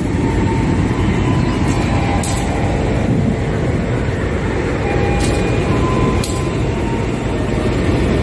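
CC 201 diesel-electric locomotive idling at the platform with a steady low rumble, a few faint clicks over it.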